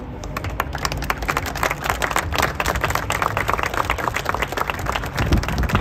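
Audience applauding, many hands clapping densely together.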